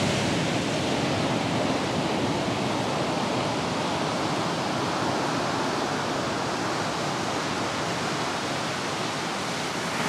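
Ocean surf breaking and washing up a sandy beach: a steady rushing wash.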